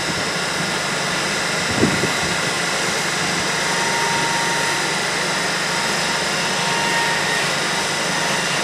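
GWR Class 802 bi-mode IET train standing at the platform, its on-board equipment running with a steady mechanical hum and several faint high whining tones. A short low thud about two seconds in.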